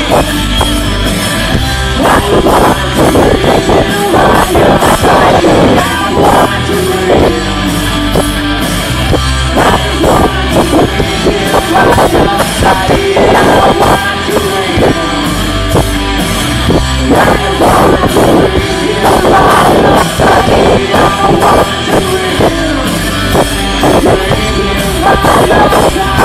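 Live rock band playing loudly, a woman singing lead over electric guitars and drums.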